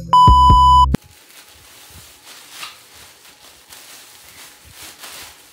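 A loud, steady TV colour-bars test-tone beep over a bass beat, lasting about a second and cutting off suddenly. After it comes faint rustling of a plastic garment bag being handled.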